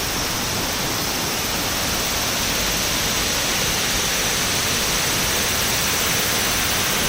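Steady rushing of Shiraito Falls, a broad curtain of many thin streams falling down a cliff face.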